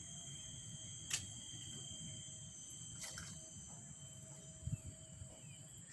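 Steady high-pitched insect drone over a low rumble, with two sharp clicks about one and three seconds in.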